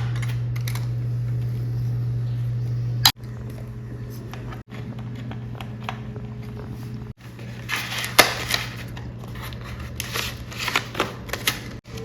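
Computer parts and their packaging being handled during a PC build: scattered sharp clicks and taps, thickest in the second half, over a steady low hum. The sound cuts off abruptly several times.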